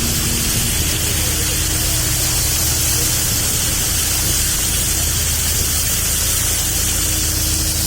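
Fishing boat's engine running steadily under a loud, even hiss.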